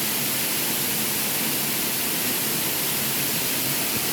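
Waterfall's falling water, a steady loud rushing heard from close up behind the curtain of water.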